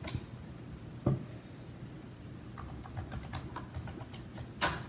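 Small clicks and taps from handling the parts of a taken-apart headset: a knock about a second in, a run of light ticks in the middle, and a sharper click near the end.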